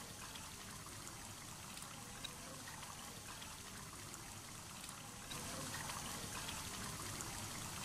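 Chicken korma simmering in a pot of oil and juices under freshly added cream: a faint, steady sizzle and bubbling with small crackles, a little louder from about five seconds in.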